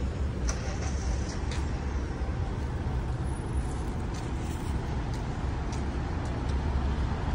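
City street traffic: a steady low rumble of cars on the road, with a few faint clicks.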